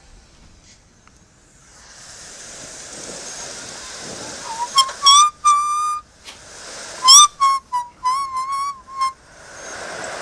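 Playback of an action camera's recorded audio, as picked up by a YI 4K Plus's built-in microphone: a steady hiss, with a person whistling a short string of notes in the middle, the notes sliding slightly in pitch.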